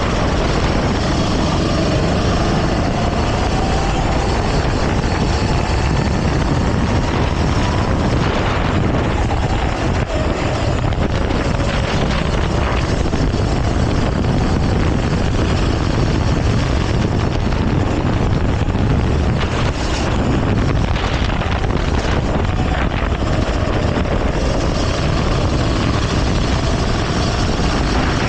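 Go-kart engine running at racing speed, its pitch rising and falling as the kart accelerates and slows, under a heavy rush of wind on the onboard camera's microphone.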